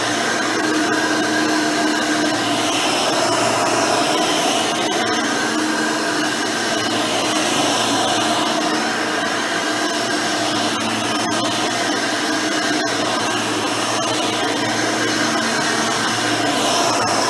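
Hoover Elite 600 upright vacuum cleaner, refitted with a modern 7-amp motor and 20-blade fan, running steadily while vacuuming.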